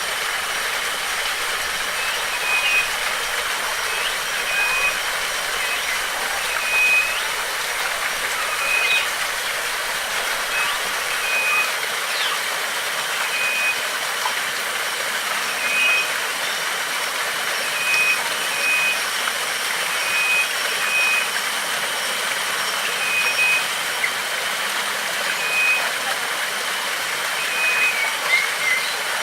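Steady rushing water. Over it a bird repeats a short single-pitched note every second or two.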